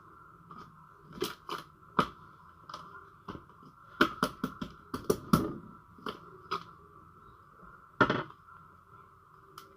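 Irregular sharp clicks and crackles, some in quick runs and a few louder cracks, over a faint steady whine.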